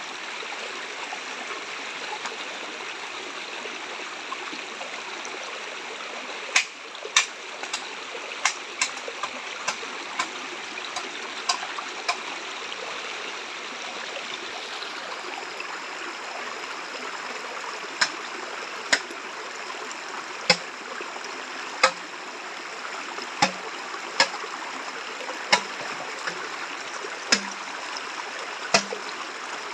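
Steady rushing of a running stream, broken by sharp knocks: a loose cluster of them about a quarter of the way in, then roughly one every second or so through the second half.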